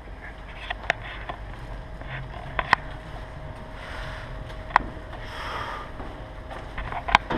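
Airsoft guns firing scattered single shots, about eight sharp cracks, the loudest near the end, over a low steady rumble.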